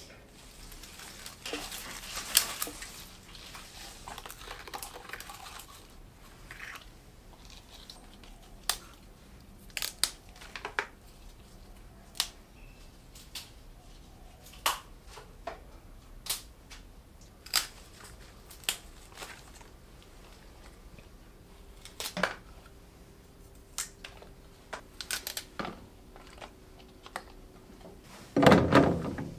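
Kitchen prep handling sounds: a few seconds of crinkly rustling near the start, then scattered light clicks and taps as water spinach stems and a plastic tray are handled over a stainless steel sink. A louder burst of sound comes near the end.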